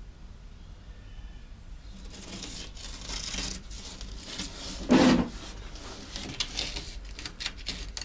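Hand scraping at rust-scabbed paint and filler around a VW bus windscreen opening: irregular rasping scrapes, with one louder knock about five seconds in.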